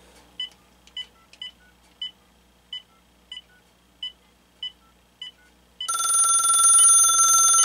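Keypad of a Uniden EXAI2980I 900 MHz cordless phone being pressed key by key, each press sending a short tone, about one every half to three quarters of a second, for some five seconds. About six seconds in, a much louder steady buzzy electronic tone starts and holds.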